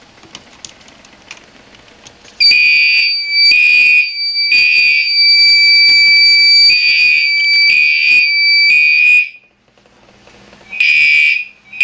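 A home fire alarm system's horns, Gentex Commander 3 horn-strobes, going off as the panel is re-alarmed. After a couple of quiet seconds with faint clicks, they start sounding in short, loud blasts with a steady high tone running under them. There is a pause of about a second and a half, and the blasts resume near the end.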